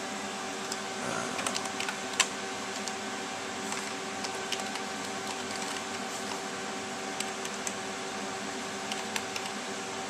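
Computer keys tapping in a short run about a second in, then scattered clicks, over the steady hum of a desktop PC's cooling fans running under a Prime95 stress-test load.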